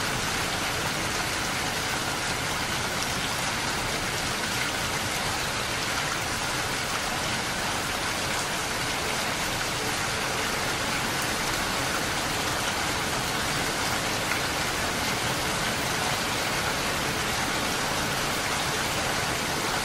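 Steady rain on a window pane: an even, unbroken hiss of many drops with no single drop standing out and no change in strength.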